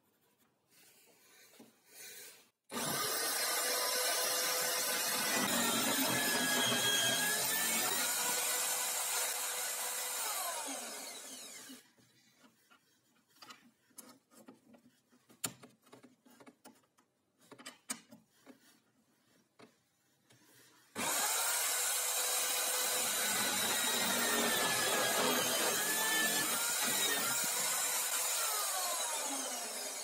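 Power drill boring into plywood with a Forstner bit, twice: a steady motor hum with the bit cutting wood, each run about nine seconds and winding down at its end. Between the two cuts come light knocks and clicks as the workpiece is turned in its jig.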